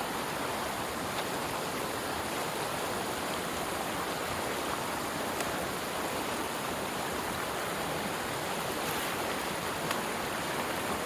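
Swift, rain-swollen creek rushing steadily.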